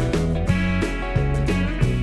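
Background music: a plucked guitar tune with a steady beat.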